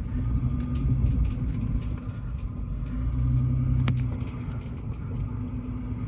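Off-road vehicle's engine running with a steady low rumble that swells a little about one second in and again around three seconds in. A single sharp click comes near four seconds in.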